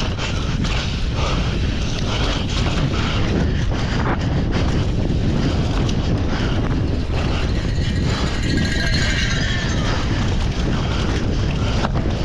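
Downhill mountain bike descending fast over dry dirt: wind buffeting the microphone with a heavy rumble, tyres on the ground, and the bike knocking and rattling over bumps throughout.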